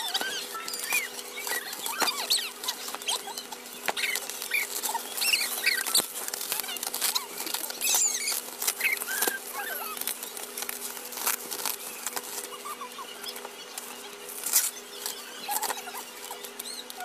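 Clear plastic bubble wrap and packaging being handled and pulled apart: continual crinkling and rustling, with sharp clicks and short squeaks of plastic rubbing on plastic. A faint steady hum runs underneath.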